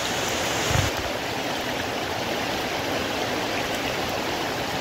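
Heavy rain pouring onto a flooded yard: a steady hiss of drops splashing into standing water. A brief low thump comes just under a second in.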